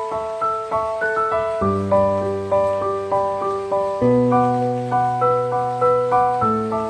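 Background instrumental music: a keyboard melody of short, evenly paced notes, about three a second, over low held notes that change every two to three seconds.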